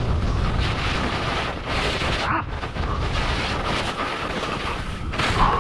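Wind buffeting the camera's microphone on a fast ski descent, with skis scraping and hissing over wind-packed snow. The rush dips briefly twice.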